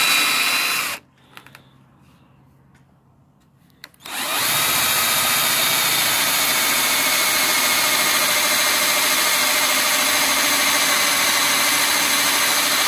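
Cordless drill boring through a softwood leg into the thick plastic wall of a 55-gallon barrel. It runs at a steady speed, stops about a second in, and after a few near-quiet seconds with faint clicks starts again about four seconds in and runs steadily on.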